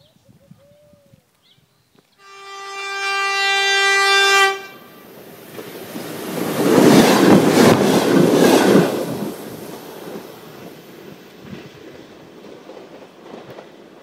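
Alstom X'Trapolis electric multiple unit sounding one long horn blast, a steady chord that cuts off sharply, about two seconds in. The train then passes close by, its wheels rushing and clicking over the rail joints, before fading away.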